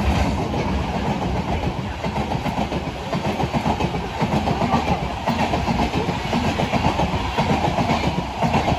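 Indian Railways express passenger coaches rushing past close by at speed. The wheels clatter over the rail joints over a steady heavy rumble.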